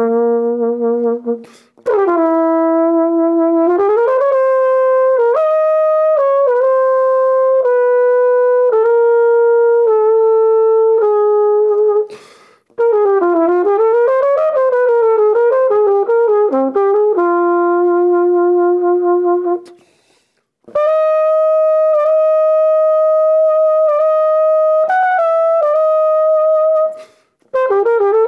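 Unaccompanied jazz trumpet playing a melody of long held notes and quick running passages, broken by four short pauses between phrases.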